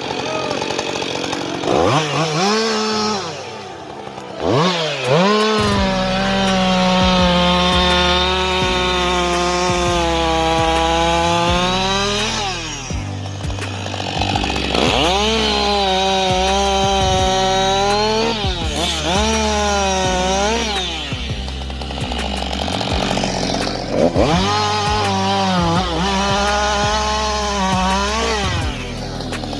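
Chainsaw engine revving up several times and holding high through long cuts of several seconds, dropping back between them.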